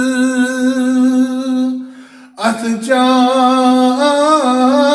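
Unaccompanied male voice singing a Kashmiri naat. He holds one long note, breaks off for a breath about two seconds in, then starts a new phrase whose pitch wavers in ornaments and steps up.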